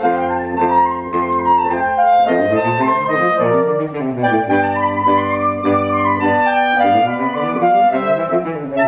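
Saxophone quartet, soprano down to baritone, playing together: held chords in several voices, with lines rising and falling past one another.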